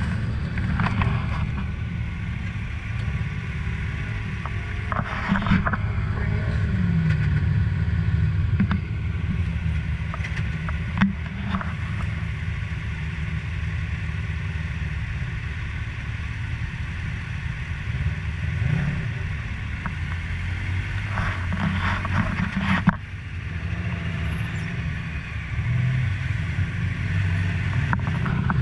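Side-by-side UTV engine running at low speed, a steady low drone heard from inside the cab, with occasional knocks and rattles.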